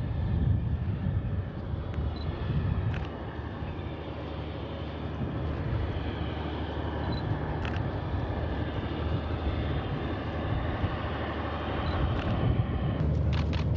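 Diesel locomotive running steadily as it pushes a Soyuz rocket on its rail transporter-erector, a low rumble with a few faint clicks.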